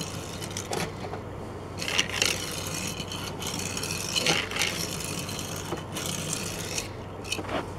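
Hot Wheels 2018 Camaro SS die-cast toy car rolled back and forth by hand across a wooden surface: a steady rolling whir from its small wheels, with a few light clicks. It runs smoothly.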